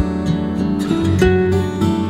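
Background music: an acoustic guitar playing plucked and strummed notes over a steady beat.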